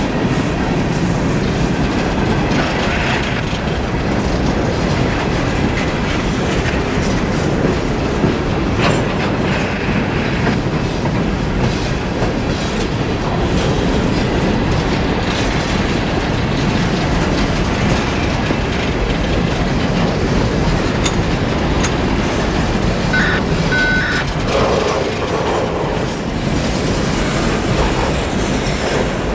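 CSX empty coal train's hopper cars rolling past, a steady rumble of steel wheels on rail with clickety-clack over the joints.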